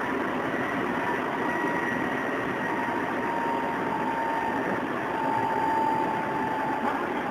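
Odakyu 8000 series electric train running, its field-chopper-controlled traction gear giving a steady rumble of wheels and running gear with a thin whine on top that slowly drops in pitch.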